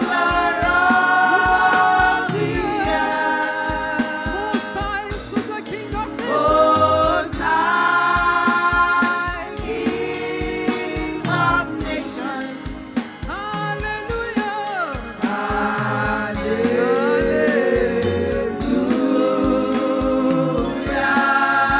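Gospel worship music: voices singing long held and sliding notes together over a steady drum beat.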